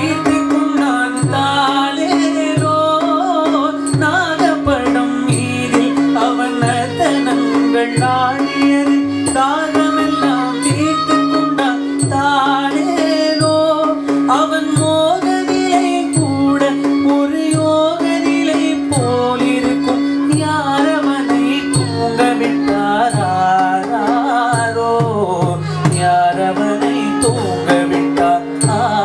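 Carnatic vocal music: a male voice sings a devotional song, accompanied by violin and the regular strokes of a mridangam, over a steady drone.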